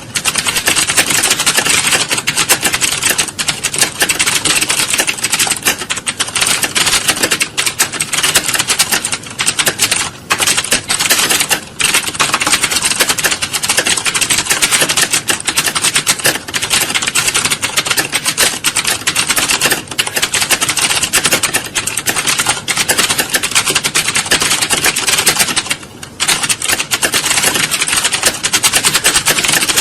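Computer keyboards being typed on rapidly, a dense, continuous clatter of keystrokes from many typists at once, as in an exam-hall typing test, with a few brief lulls.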